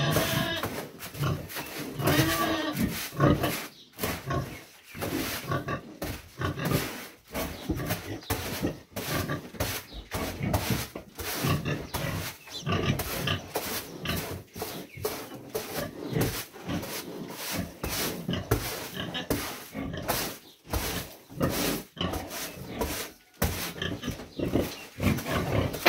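Heavily pregnant sow near farrowing grunting and moving about in her pen, over repeated scraping strokes of a broom sweeping the floor.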